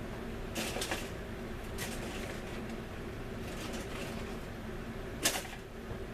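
A few short clicks and light scrapes of small plastic model-kit parts being handled on a workbench, the loudest just over five seconds in, over a steady low background hum.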